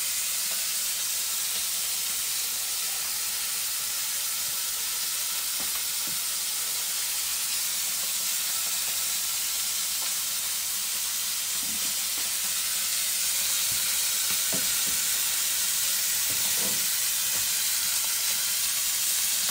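Food frying in a hot pan, with a steady sizzle and a few faint clicks.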